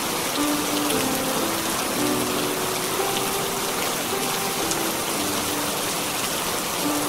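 Steady heavy rain hissing evenly, with a few small drop ticks. Underneath it runs a slow, soft melody of held notes.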